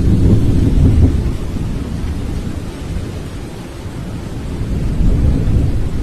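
Thunder rumbling over a steady hiss of rain, swelling in the first second and again near the end.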